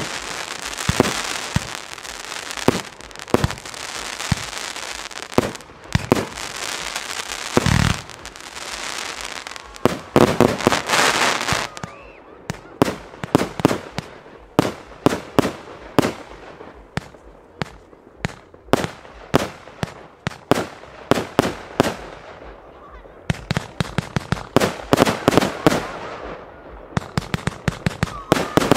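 Aerial fireworks bursting overhead: a steady run of sharp bangs with stretches of crackling in the first dozen seconds, then a fast run of separate reports several a second from about halfway through.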